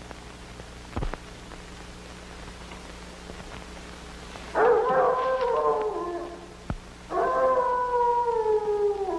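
A dog howling twice, each howl long and sliding downward in pitch, the second starting about a second after the first dies away. A low steady hum runs underneath, with a soft click about a second in.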